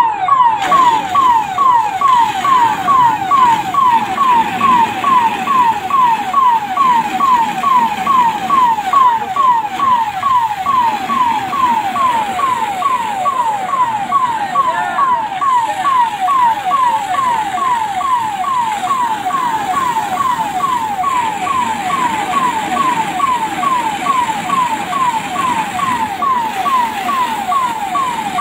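Fire engine's electronic siren sounding without a break, each cycle a quick falling sweep, about two a second.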